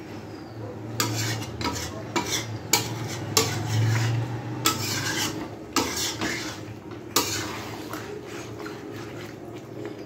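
A metal spatula stirring and scraping a wet chicken curry around a metal kadai, with irregular clinks and scrapes of metal on metal.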